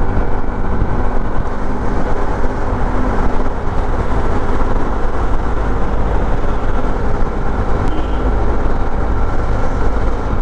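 Suzuki V-Storm 250 SX's single-cylinder engine running steadily at cruising speed, under heavy wind and road noise on the bike-mounted microphone.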